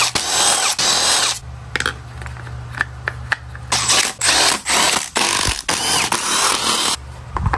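Power tool running in several short bursts with mechanical clicking, fastening the bolts of engine case covers on a motorcycle.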